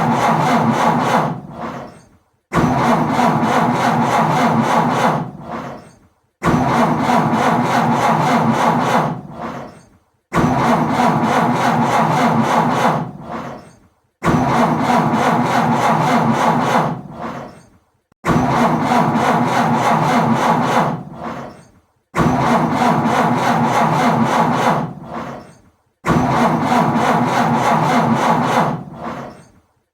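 Car starter motor cranking an engine that will not catch. Each attempt runs about three seconds, then winds down and stops, and repeats about every four seconds.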